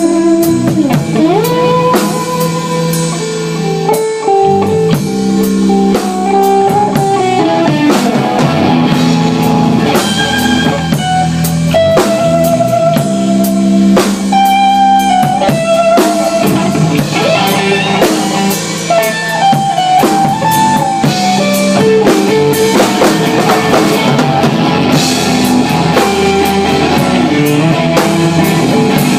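Live instrumental rock/blues band: a guitar plays a melodic lead with bends and slides over drums and bass.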